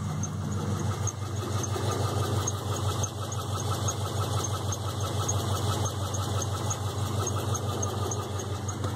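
1998 Pontiac Trans Am's LS1 V8 idling with a regular knocking tick, about three a second, running through the steady engine sound. The knock is a noise the engine started making recently.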